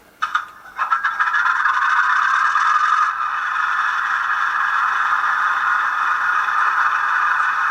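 Digital sound decoder in an N-gauge model of the ÖBB 5145 diesel railcar, playing its diesel engine sound through a tiny speaker. Two short bursts come in the first second, then a steady, tinny running sound.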